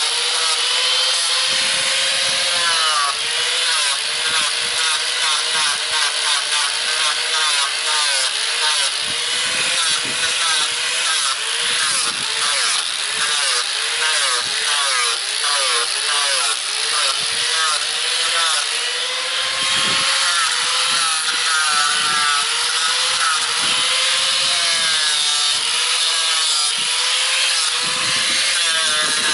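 4.5-inch angle grinder fitted with a coarse 25–30 grit sanding pad, sanding wood, with a dense grinding hiss. The motor's whine dips and wavers over and over as the pad is pressed into the carving and eased off.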